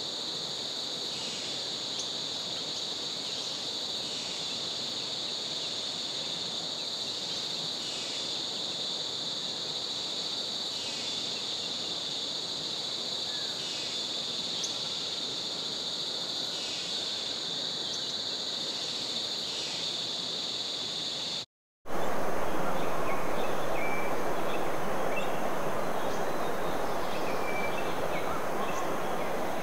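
Rainforest insect chorus: a steady high-pitched drone, with a short call repeating every second or two. After a cut near the end, a louder rushing noise takes over, with a few brief bird-like notes.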